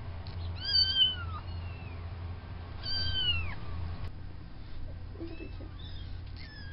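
Kittens a few weeks old mewing: several thin, high-pitched mews that rise and fall, the loudest about a second in and three seconds in, with fainter ones near the end.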